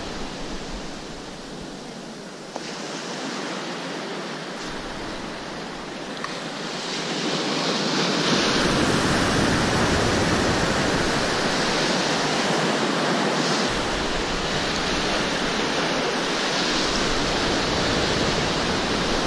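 Rough sea surf washing and breaking, a steady rush of water that swells louder about eight seconds in and stays up.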